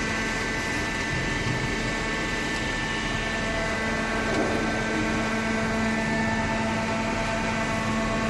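Hydraulic cardboard baler's electric motor and pump running with a steady hum.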